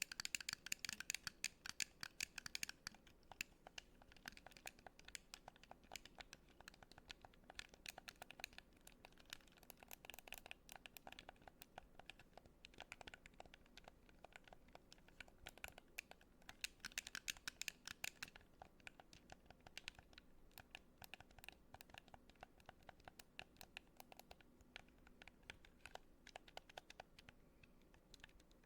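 Fast, irregular clicking and scratching of buttons, many clicks a second, busiest in the first few seconds and again about two-thirds of the way in.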